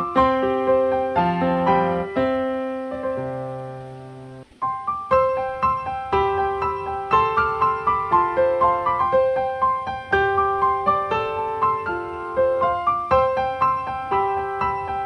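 Background piano music, a calm melody of single struck notes that ring and die away; about four seconds in the phrase fades out, and a new one starts half a second later.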